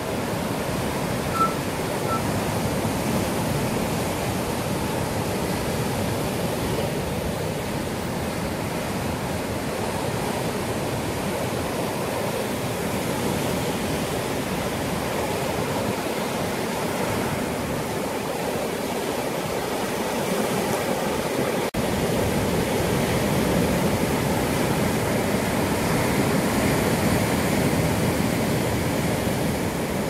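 Sea surf breaking and washing over coastal rocks: a steady, continuous rush of waves, growing a little louder in the last third.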